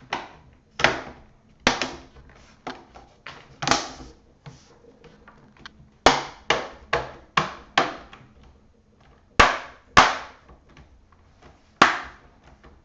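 Plastic screen bezel of an Asus G74 laptop being pressed onto the lid, its clips snapping into place one after another: a long irregular run of sharp clicks and snaps, a few much louder than the rest.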